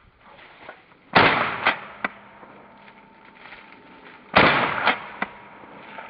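Two shotgun shots about three seconds apart, each a loud crack with a decaying tail followed by two fainter cracks.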